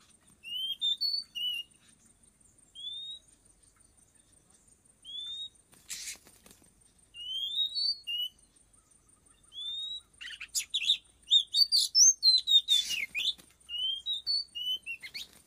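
Oriental magpie-robin calls: a series of short, rising whistled notes in phrases, mixed with a few harsh scratchy rasps that grow busier in the second half.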